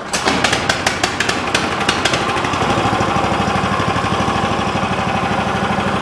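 A 420 cc, 15 hp single-cylinder recoil-start engine on a bandsaw sawmill catches on the pull. It runs unevenly for about two seconds, then settles into a steady idle.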